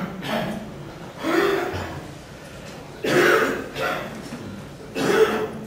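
A person coughing and clearing their throat: several short coughs at uneven intervals, the loudest about three and five seconds in.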